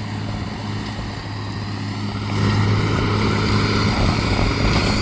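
Tractor engine running steadily while pulling a working hay baler, a low drone with a mechanical rush over it that grows louder about two seconds in.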